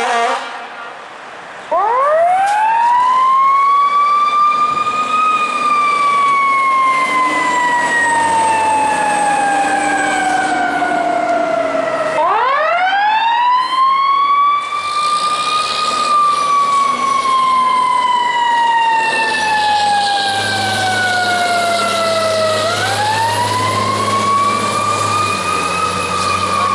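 Fire truck siren wailing three times. Each time it winds up quickly to a peak, then slowly winds down, starting again at the bottom.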